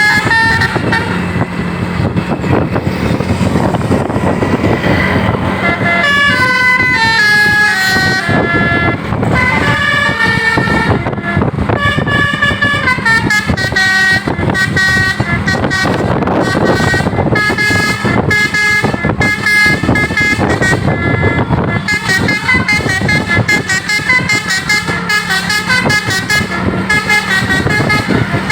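Basuri multi-tone 'telolet' bus air horn playing melodies: runs of notes that step up and down in pitch, one after another, over a steady low drone and rumble.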